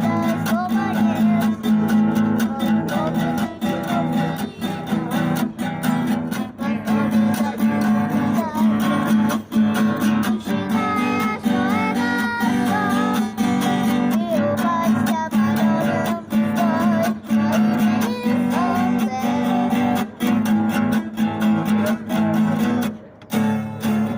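Acoustic guitar strummed in a steady rhythm with a melody line over it, played as a song without words; the playing stops briefly near the end, then resumes.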